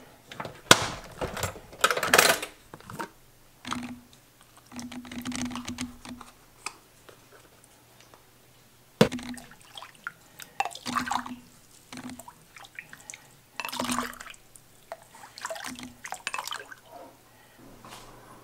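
Broth being ladled from a slow cooker into a ceramic mug: liquid pouring and dripping, with irregular short knocks of the ladle against the pot and mug.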